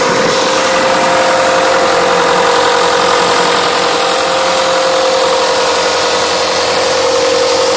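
Diesel engine of an Ingersoll Rand 250 CFM towable air compressor running steadily, heard close up with the engine cover open, with a steady whine through the engine noise.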